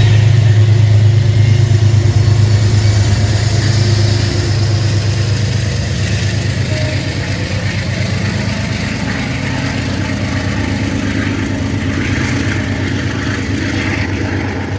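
Metro-North GE Genesis P32AC-DM diesel locomotive pushing its passenger train out of the station, its engine running with a heavy low hum. The sound is loudest in the first few seconds and grows somewhat quieter from about four seconds in as the train moves away.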